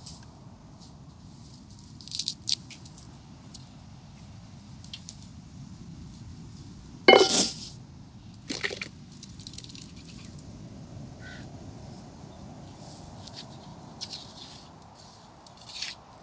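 Ground coconut paste being scraped by hand off a clay plate into a pan of curry liquid, with wet dripping and splashing sounds. A loud, sharp clatter with a brief ring comes about seven seconds in, and a smaller one follows a second and a half later.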